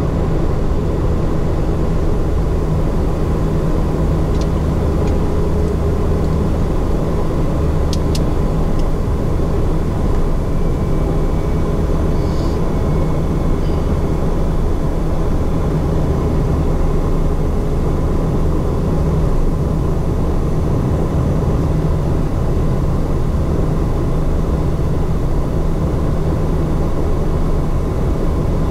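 Twin Pratt & Whitney PT6A turboprop engines and propellers of a Beechcraft King Air F90 running steadily at taxi power, a constant drone heard from the cockpit. A few faint clicks come about four and eight seconds in.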